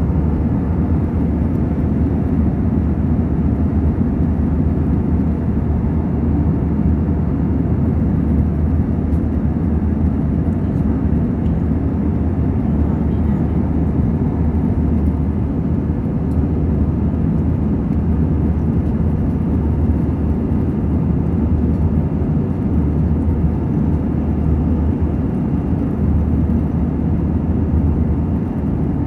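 Steady low roar of an airliner in flight, heard from inside the cabin.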